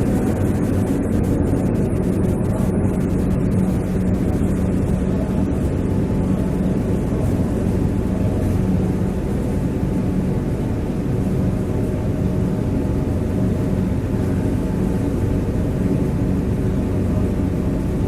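Forklift engine running steadily with a constant low hum.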